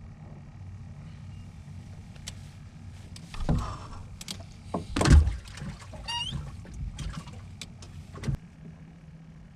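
Knocks and scraping in a fishing boat over a steady low hum. There are several knocks, the loudest about five seconds in, and a brief squeak just after six seconds.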